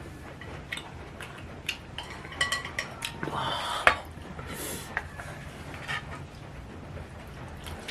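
Eating utensils clinking against a bowl during a noodle meal: scattered sharp clinks, several together a little over two seconds in and a louder one near four seconds.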